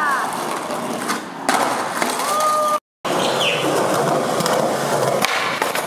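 Skateboard wheels rolling over rough concrete, with a sharp clack of the board about a second and a half in and another near the end. The sound drops out for a moment about three seconds in.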